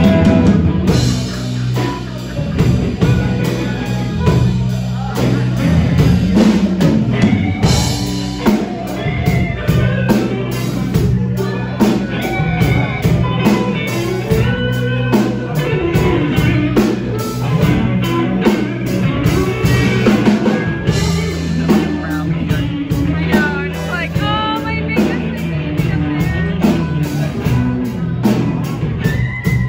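Live blues band playing: electric guitars, electric bass and drum kit, with a lead part played into a hand-held microphone.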